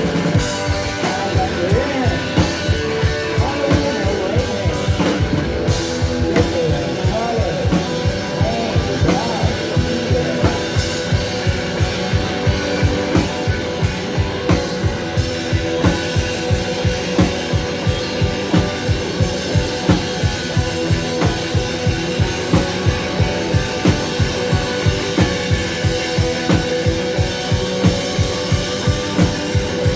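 Live rock band playing, with the drum kit keeping a steady beat of about two and a half hits a second under electric guitar and a held droning note. A bending melodic line rides over it in the first ten seconds or so.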